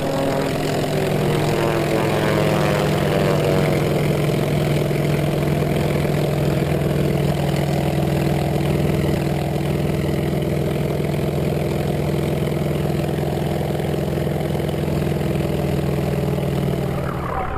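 Brushless electric motor and propeller of a Durafly Brewster Buffalo RC model plane, heard from its onboard camera in flight: a steady droning hum with a rush of air. Its pitch drops in the first second, then holds steady.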